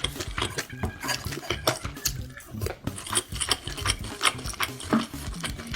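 Close-up eating sounds: many quick clicks and clinks of utensils against a dish while spicy Korean pork is eaten.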